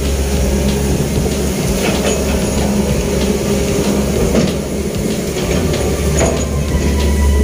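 Long-arm excavator's diesel engine and hydraulics running steadily, heard from inside the cab, a constant low rumble with scattered faint clicks and knocks as the bucket works wet mud.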